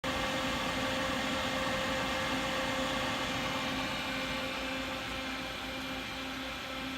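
Steady machinery hum with fan-like noise, a constant tone and a lower pulsing tone, easing slightly about halfway through.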